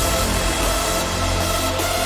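Electronic dance music that comes in loud and full all at once, over a sustained deep bass and held synth tones.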